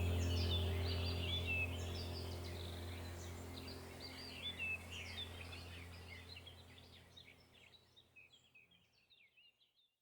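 Many small birds chirping and twittering in quick, overlapping calls over a low steady drone. The whole mix fades out gradually to near silence by the end.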